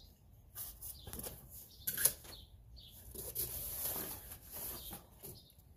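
Cardboard box being handled and pulled open by hand: irregular rustling and scraping of the cardboard, with a sharp tap about two seconds in.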